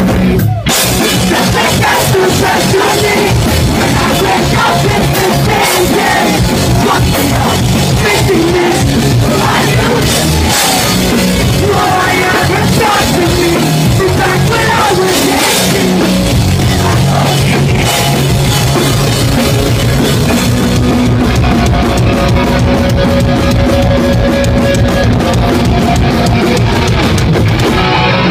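A pop-punk band playing live at full volume: guitars and a drum kit with cymbals, in steady rock rhythm.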